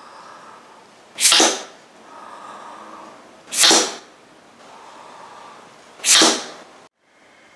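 Three forceful puffs of breath blown into a 15mm blowgun tube, each a short whoosh, about two and a half seconds apart, with quieter breaths drawn in between.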